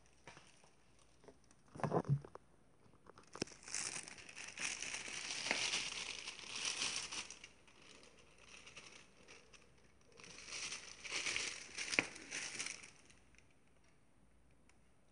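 Rustling and crinkling in two long stretches, with a sharp thump about two seconds in and a click near twelve seconds.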